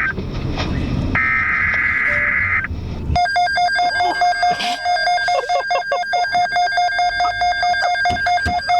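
Emergency Alert System broadcast tones: over a background hiss, a burst of buzzy digital header data tones about a second in, then from about three seconds a loud electronic alert tone that switches rapidly back and forth between pitches.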